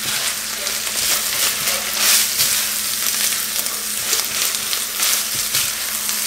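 Ground beef and tomato sauce sizzling in a nonstick skillet while a wooden spoon stirs through it, its repeated scraping strokes over a steady frying hiss.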